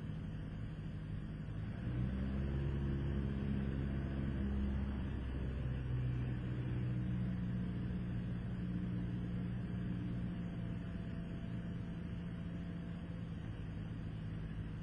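Cessna 172 Skyhawk's four-cylinder Lycoming piston engine and propeller running steadily in the cockpit, getting louder and changing pitch about two seconds in.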